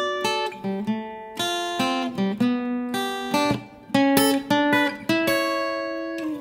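Background music on acoustic guitar: a quick run of plucked notes and strums.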